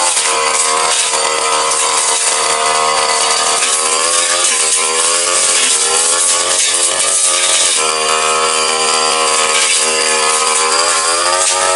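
Backpack brush cutter engine running at high revs while its blade cuts grass and small brush, the engine's pitch sagging and recovering a few times as the blade bites into thicker growth.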